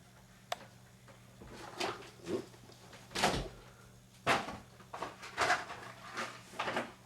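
A series of household knocks and scuffs, about eight in a few seconds after a single sharp click, of the kind a door or cupboard makes when handled, over a faint steady hum.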